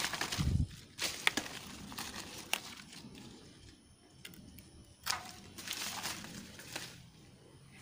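Hand pruning shears snipping woody grapevine canes, a few sharp clicks, with leaves and branches rustling as the vine is handled; low bumps near the start.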